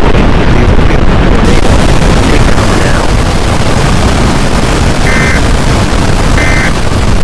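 Strong wind buffeting the microphone, a loud, steady rumble of noise. Two short high beeps sound near the end, about a second and a half apart.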